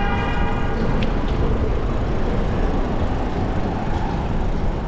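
Wind rushing over the microphone of a moving bicycle, with tyre and street-traffic noise, on a city bike lane. A short, high, evenly pitched tone sounds for the first second or so, followed by a single click.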